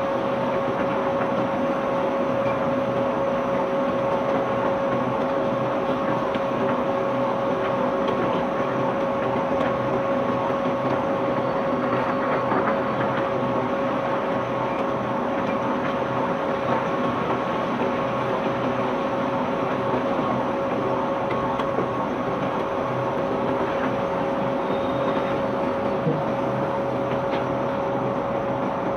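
Barge unloading machinery running steadily with a constant whine, over a dense clatter of cobblestones being moved.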